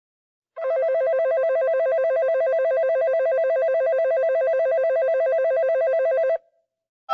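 Electronic train departure bell on a JR Yamanote Line platform at Ueno Station: a steady, rapid ringing warble between two close pitches. It starts about half a second in and stops abruptly after about six seconds.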